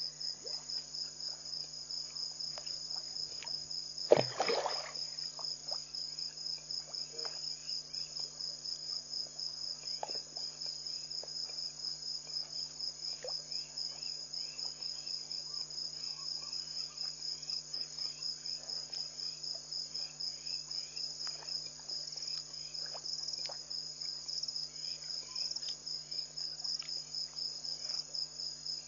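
Crickets chirping in a steady, rapid pulse over a low, steady hum. A brief loud noise breaks in about four seconds in.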